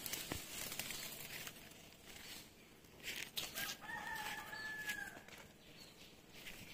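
A rooster crowing once: a single held call about a second and a half long, starting a little past the middle, over scattered rustling and small clicks.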